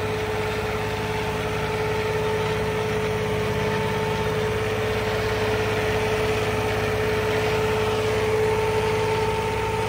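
Small John Deere tractor's diesel engine running steadily under heavy load, dragging a tillage implement through loose soil with the rear wheels slipping for lack of weight. A steady whine sits over the engine throughout.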